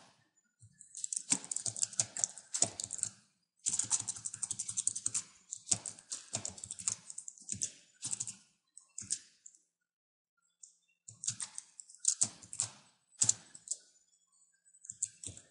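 Typing on a computer keyboard: bursts of rapid keystrokes with short pauses between them, and a longer break of about a second around two-thirds of the way through.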